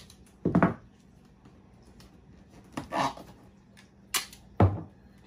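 Duct tape pulled off the roll and torn in several short rips, with a couple of dull knocks among them.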